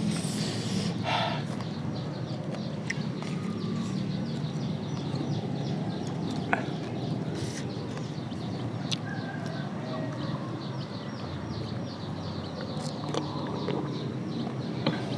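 Someone eating close to the microphone, with scattered small clicks of chewing, over an outdoor rural background with birds calling.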